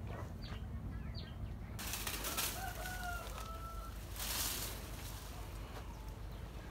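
A rooster crows once, about two seconds in, for about a second. A few short bird chirps come in the first second or so, and a brief rush of noise sounds just after four seconds, over a steady low rumble.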